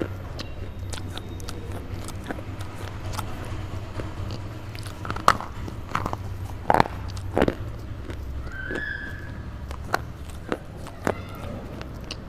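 Dry biting and crunching of a red slate bar, right up at the microphone: irregular crisp cracks and crumbles, with the loudest few snaps in the middle.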